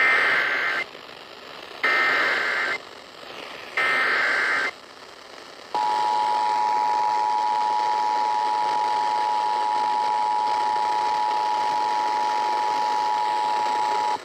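Emergency Alert System activation over FM radio: three short bursts of the SAME digital header tones, about two seconds apart, with radio hiss between them. These are followed by the steady two-tone EAS attention signal, held for about eight seconds, announcing a National Weather Service flash flood warning.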